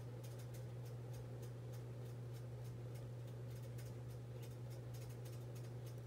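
Faint scratchy ticking of a watercolour brush's bristles on paper as it paints, over a steady low hum.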